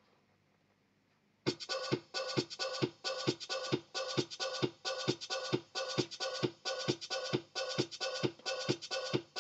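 Casio CTK-3500 keyboard's built-in rhythm starting about a second and a half in: a steady electronic drum beat at roughly two to three strokes a second.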